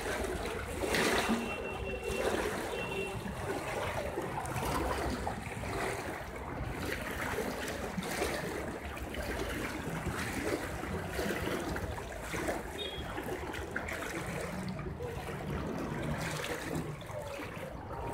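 Seawater floodwater running and splashing through a narrow walled lane: a steady rush of flowing water, from a sea surge that has overtopped the coast.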